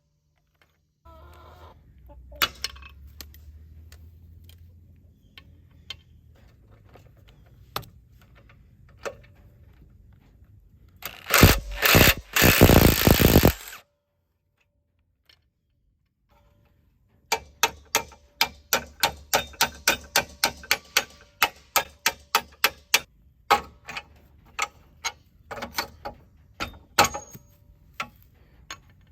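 Tool work on a worn trailer hitch coupler: a power tool runs in a loud burst of a couple of seconds near the middle, then, after a pause, a long run of regular sharp clicks, about two to three a second, like a ratchet or metal parts being worked.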